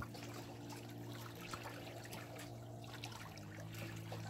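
Eastern chipmunk nibbling and cracking sunflower seeds in a hand, making small scattered clicks, over faint lapping lake water and a steady low hum.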